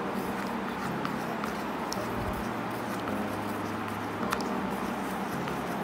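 Wooden ice-cream stick stirring glue and dye in a plastic bowl, giving a few light clicks over a steady low room hum.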